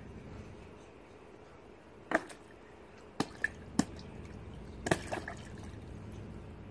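A child's hands splashing and swishing water in a plastic tub, with a few short splashes and drips from about two seconds in over a steady background hiss.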